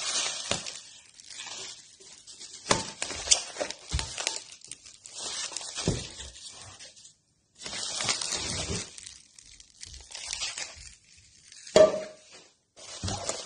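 Bubble wrap crinkling and rustling in irregular spells as hands unwrap a frying pan inside a cardboard box, with scattered knocks and clicks. A short ringing clink near the end.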